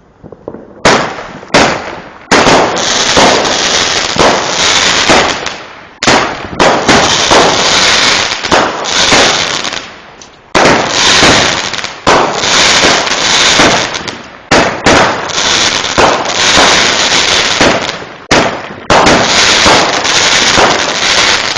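Fireworks going off: a dense, continuous run of bangs and crackling that starts about a second in and surges again every few seconds.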